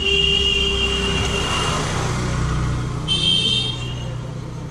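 Vehicle horn honking twice, a longer blast at the start and a shorter one about three seconds in, over the steady low rumble of passing road traffic.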